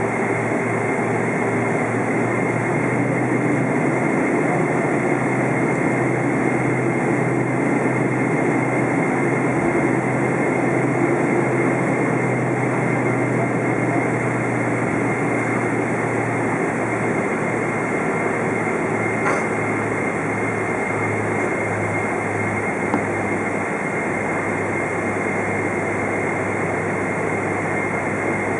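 Cabin noise of a KLM Boeing 777-200 taxiing, heard from a window seat beside its GE90 engine: an even rushing with a steady high whine. A low hum underneath turns uneven about halfway through.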